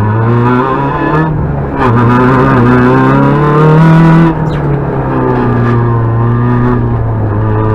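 Peugeot 106 rally car's engine heard from inside the cabin, driven hard: its pitch climbs for a couple of seconds, drops sharply a little past four seconds in, then holds fairly steady.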